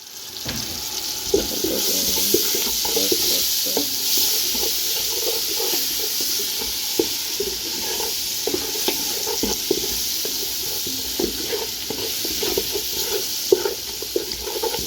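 Onions, spices and green scotch bonnet peppers frying in hot sunflower oil in a pot: a steady sizzle, with a spoon knocking and scraping against the pot as the mixture is stirred.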